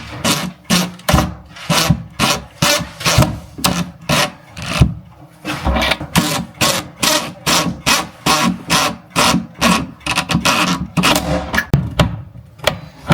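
A hand tool rasping back and forth in even strokes, about two or three a second, with a short break about twelve seconds in.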